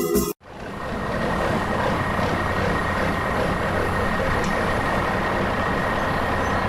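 Organ music cuts off in the first half-second, then a heavy truck's engine runs steadily, with a faint high whine over it.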